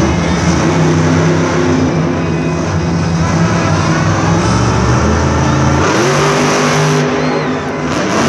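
Monster truck's supercharged V8 engine revving hard through two-wheel tricks; the engine note shifts, partly rising, about six seconds in.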